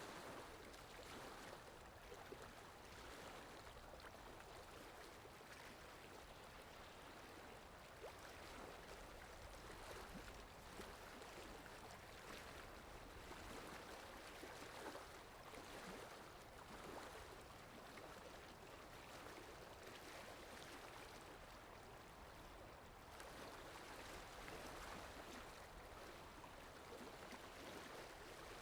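Faint, continuous water ambience added as a background sound effect: a steady rush of flowing water that swells and eases every couple of seconds.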